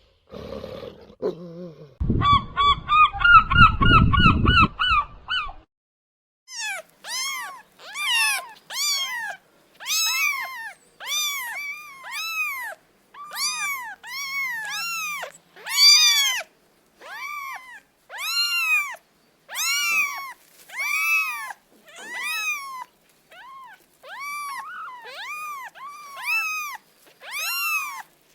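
A cat, likely a kitten, meowing over and over in short rising-and-falling cries about every half second. Near the start there is a few seconds of a different rapid, pulsed animal call.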